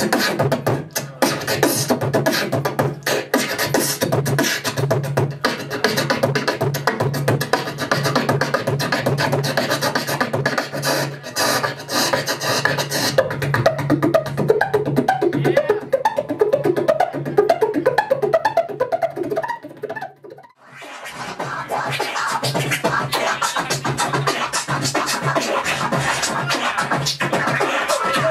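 Beatboxing into a handheld microphone: rapid percussive clicks and snares over a steady low bass tone, with a wavering hummed melody woven in through the middle. There is a brief break about two-thirds of the way in before the beat picks up again.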